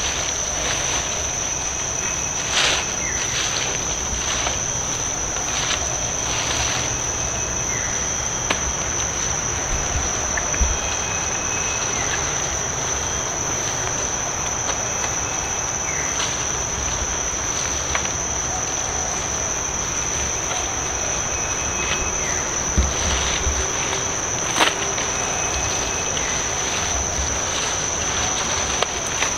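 Insects droning steadily at one high pitch, with a few short sharp clicks and faint brief chirps over it.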